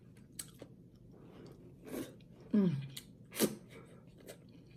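Close-miked mouth sounds of eating: soft chewing clicks, a couple of short falling hums of enjoyment, and a sip from a spoon about three and a half seconds in.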